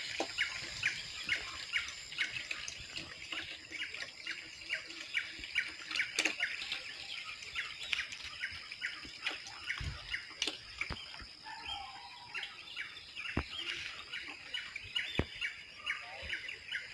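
Birds calling in a rural morning chorus: one bird gives quick repeated chirps, about two or three a second, and a few lower warbling calls come in around the middle. A constant high whine and occasional clicks sit underneath.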